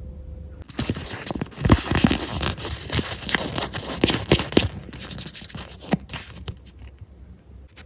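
Hands handling and unwrapping plastic toy packaging: rustling and scraping with many small clicks. It starts about a second in, is busiest in the middle and thins out toward the end.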